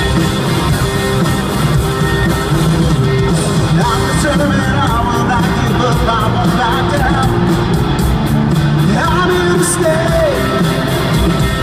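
Live rock band playing over a stadium sound system: electric guitar and drums, with a steady hi-hat ticking through the middle. A male voice comes in singing about four seconds in.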